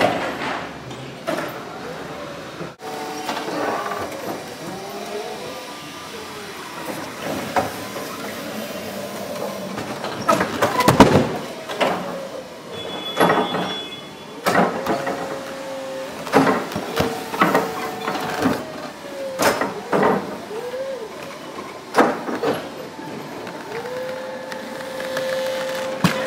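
Forklift with a carton clamp attachment at work: its hydraulic pump whines in rising, falling and held tones as the clamp arms squeeze and the mast lifts and tilts. Sharp knocks and clunks come again and again from the clamp pads, mast and load.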